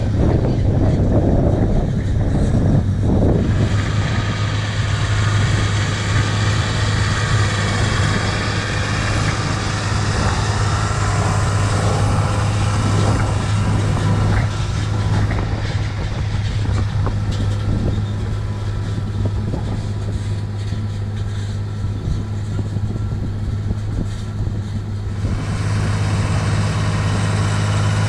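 John Deere 8100 tractor's six-cylinder diesel engine working under load with a steady low drone, pulling an eccentric disc harrow whose discs hiss and rattle through the soil. The harrow's hiss drops away about three seconds before the end while the engine drone continues.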